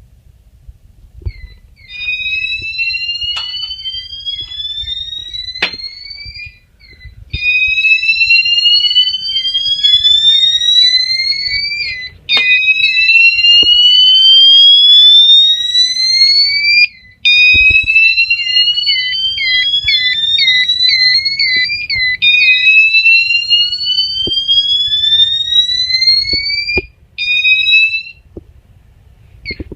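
A System Sensor chime strobe sounding the slow whoop tone: a loud tone rising in pitch over about four and a half seconds, repeated about six times with short breaks, the last whoop cut short near the end. A rapid chirping runs alongside the whoops.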